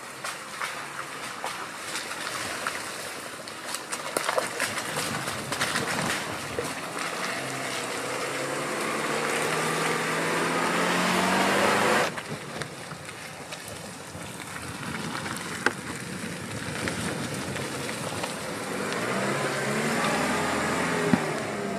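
Land Rover Defender P300's 2.0-litre turbo four-cylinder petrol engine pulling the SUV through mud, its pitch rising as it revs, with scattered clicks and knocks from the tyres on the rutted track. The engine climbs steadily to a peak and cuts off abruptly about twelve seconds in, then rises again near the end.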